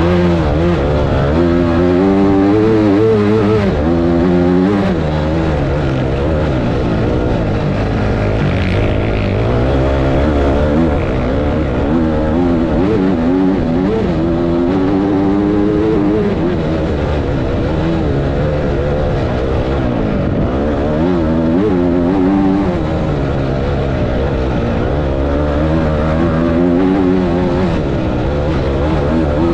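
Off-road motorcycle engine heard from on the bike, revving up and down again and again as the throttle opens and closes over sand dune terrain.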